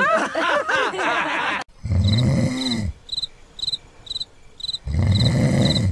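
A man's wailing cry for the first second and a half. Then two long snores and a cricket chirp sound effect, about two chirps a second, in the pause between the snores.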